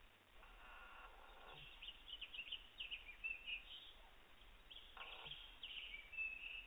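California condor chick snoring faintly: two soft, breathy snores, one about half a second in lasting about a second and another around five seconds in. Rapid high bird chirps sound between and after them and are louder than the snores.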